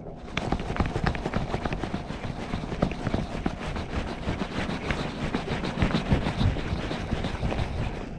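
Spinning fishing reel being wound in fast, giving a rapid, uneven run of clicks and rattles over a low wind rumble on the microphone.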